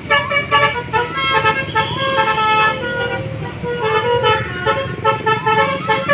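Basuri musical bus horns playing melodies, several tunes overlapping with notes stepping up and down several times a second, over the steady hum of a bus engine.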